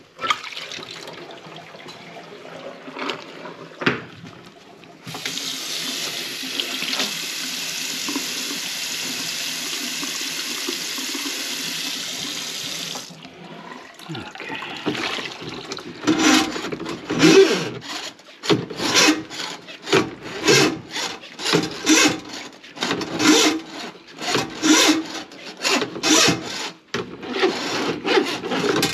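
Kitchen tap running steadily for about eight seconds, then a run of quick scraping strokes at about two a second, from work on the clogged sink drain.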